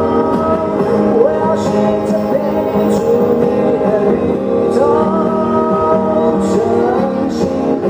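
Band music continuing after the last sung chorus line: sustained chords under a gliding melody line, with no sung words.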